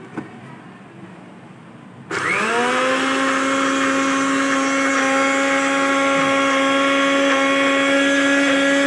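A few light clicks as the blender lid is fitted. About two seconds in, the Westpoint blender's motor starts, spinning up with a quickly rising whine. It then runs steadily and loudly, grinding lentils, garlic and cumin into a paste.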